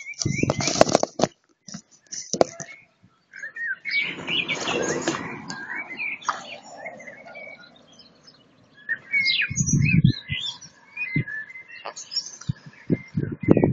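Several birds singing, with many short, varied whistled chirps and calls overlapping. A few low rumbles of wind on the microphone come in near the start, about ten seconds in and near the end, and a louder rushing noise rises about four seconds in.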